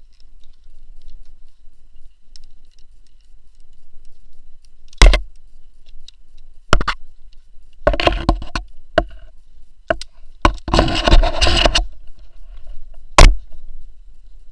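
Climbing rope and metal climbing hardware handled at a harness: a few sharp clacks of metal gear knocking, about 5, 7 and 13 seconds in, and two longer spells of rope rubbing and rustling through the device around 8 and 11 seconds in.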